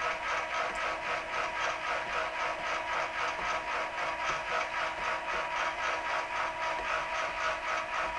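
Camera rotor motor turning the pole-mounted security cameras: a steady mechanical whir with rapid, even clicking about five times a second, starting and stopping abruptly.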